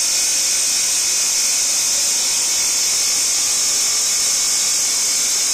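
Steady high-pitched hiss of the hydraulic pump unit powering a Plarad hydraulic torque wrench while the wrench tightens a large flange bolt.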